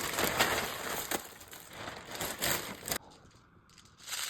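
Packaging crinkling and rustling as it is handled, with a dense crackle that stops abruptly about three seconds in and starts again near the end.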